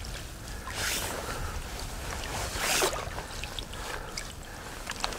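Water splashing twice, about a second in and again near three seconds, as a pike is held in the water for release, over a low steady rumble.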